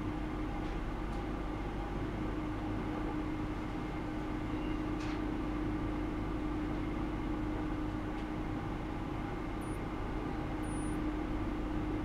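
Steady electrical hum of running lab equipment: a constant mid-low tone over low hum and hiss, with two faint, brief high beeps near the end.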